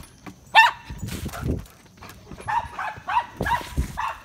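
Dogs barking at each other through a wooden fence: one loud bark about half a second in, then a run of shorter barks in the second half, mixed with dull low thumps.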